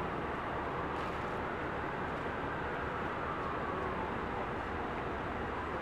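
Steady rumble of idling fire-truck diesel engines, with a faint tone that rises and falls through the middle.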